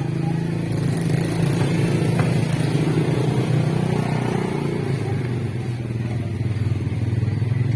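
Motorcycle engine running steadily close by, its low even drone getting a little louder about a second in.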